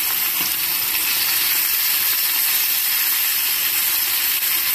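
Zucchini slices frying in hot oil in a pan: a steady sizzle.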